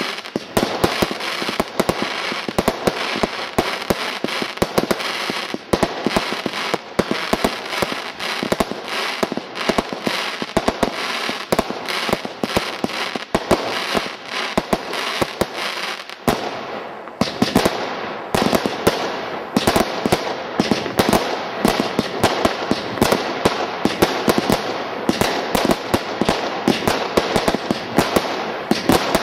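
Total Turmoil firework barrage cake firing continuously: a rapid run of shots and aerial bursts with crackle, several every second.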